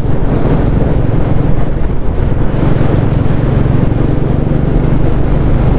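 Motorcycle engine running steadily while riding at cruising speed, with wind rushing over the microphone.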